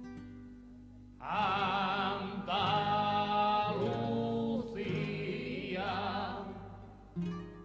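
Male voices singing long held notes with vibrato in harmony over a Spanish guitar. The voices come in about a second in, in three long phrases, and the guitar plays on its own again near the end.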